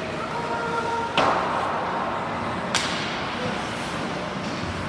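Ice hockey play in a rink: two sharp cracks of stick and puck on the ice or boards, about a second and a half apart, the first the loudest and followed by a brief scraping hiss.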